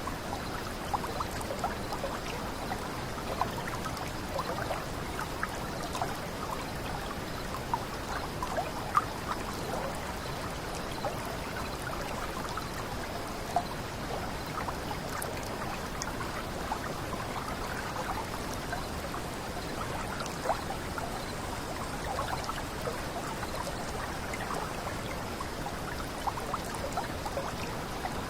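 Water running over a small cascade: a steady trickle dotted with many small splashes and drips.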